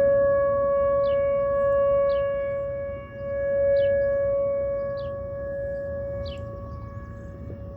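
Outdoor tornado warning siren sounding a steady tone during a test. Its loudness swells and dips, with a sharp dip about three seconds in, and it grows quieter over the second half.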